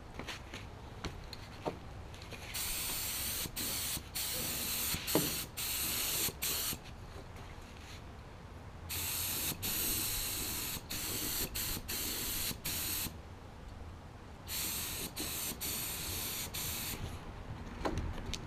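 HVLP spray gun hissing as it sprays black acrylic enamel onto steel wheels. It goes in three long bursts of several seconds each, with short breaks inside them.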